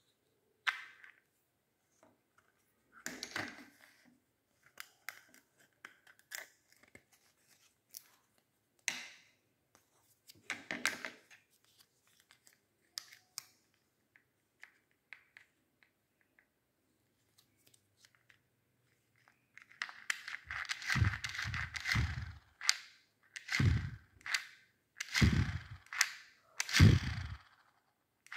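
Small plastic clicks and scrapes as the propeller of a handheld mini electric fan is pulled off and a new one pressed onto the motor shaft. About twenty seconds in, the tiny fan motor starts whirring, and its air strikes the microphone in repeated gusts about a second and a half apart.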